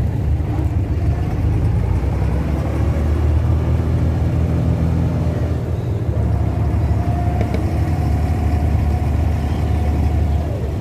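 Abra's diesel engine running steadily, a low drone. A higher steady whine joins it about six seconds in and fades out near the end.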